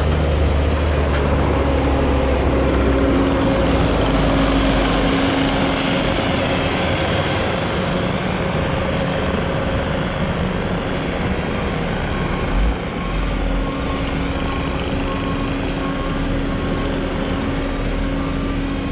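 A large vehicle's engine running steadily. Partway through a backup alarm starts beeping at an even rate, with one thump just before it.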